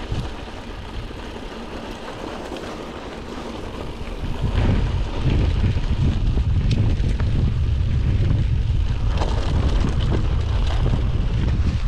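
Wind buffeting a chest-mounted camera's microphone during a mountain bike ride, mixed with tyre and trail noise and a few sharp clicks and rattles. The rumble gets much louder about four and a half seconds in and stays loud.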